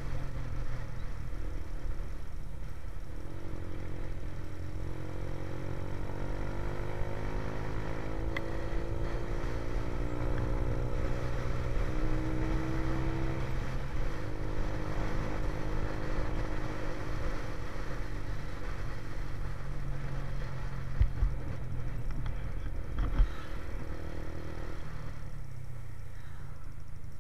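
Motorcycle engine running at road speed under a steady low rumble, its pitch rising and falling with the throttle. Two short thumps come about three-quarters of the way through.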